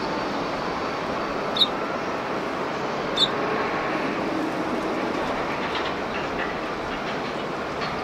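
Eurasian tree sparrows chirping: two short, sharp chirps about a second and a half apart, then a few fainter ones near the end, over a steady noise of airport traffic and wind.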